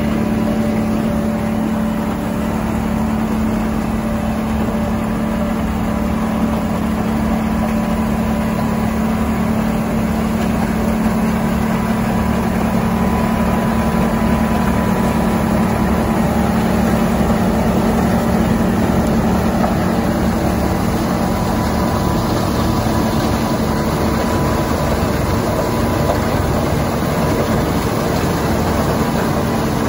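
Larue D60 snowblower working a snowbank and blowing snow through its chute into a tractor-trailer dump truck beside it. Its engine and blower and the truck's diesel engine make a steady drone with a constant low hum.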